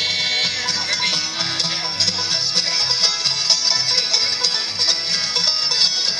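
A live acoustic bluegrass band playing a steady tune, with strummed acoustic guitars and an upright bass under a picked string lead.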